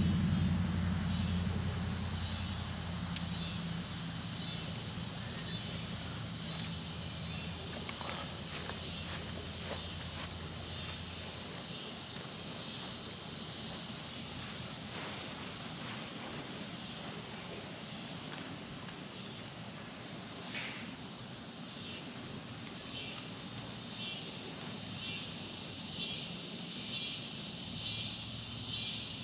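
Steady high-pitched chorus of insects, turning into rhythmic pulsing chirps near the end, with a low hum underneath that dies away about halfway through.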